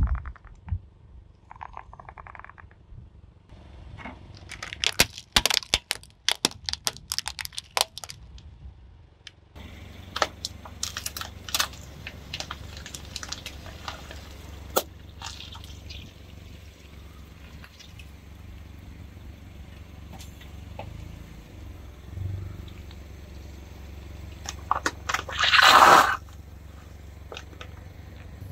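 Silicone pop-it toys being crushed under a car tyre: a quick run of sharp pops and cracks, then the car's engine running with a low steady hum, scattered clicks, and one loud crunching pop near the end.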